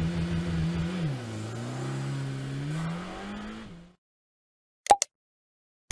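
A car engine accelerating, with a drop in revs about a second in like a gear change, then revving up again and fading out. After a pause, two sharp clicks.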